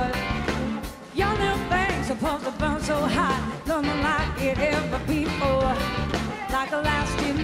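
Live blues-rock band playing: drums, electric guitars and a woman's lead vocal over the band. The sound dips briefly about a second in, then the full band comes back in.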